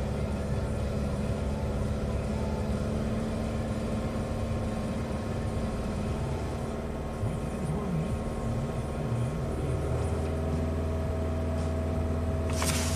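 Chevy Cobalt's 2.2-litre four-cylinder engine idling steadily while it warms up toward operating temperature for an idle relearn.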